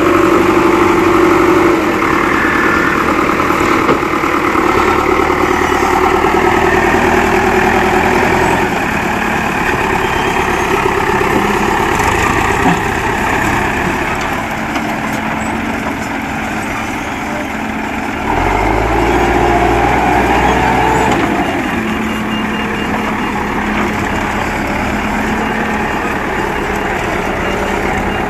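Diesel engine of a Terex backhoe loader running, its pitch shifting several times as the load changes. It revs louder and deeper for a few seconds about two-thirds of the way through.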